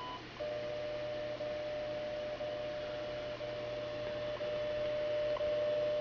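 WWV shortwave time signal from the Heath GC-1000 clock's speaker. A steady high beep marking the top of the minute ends just after the start. Then a steady lower tone runs on, broken by a short tick once a second, over a faint hum.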